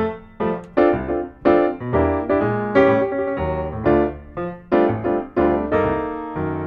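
Piano music: struck chords in a steady rhythm, about two a second, each ringing and fading before the next.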